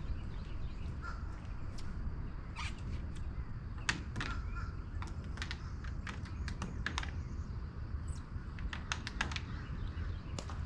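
A scattering of short, sharp bird calls, many in quick clusters, over a steady low rumble of outdoor background noise.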